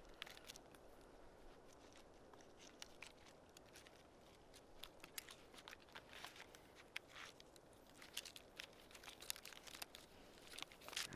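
Very quiet: faint rustling and scattered small clicks and ticks, as of straps and climbing gear being handled, over a low steady hiss.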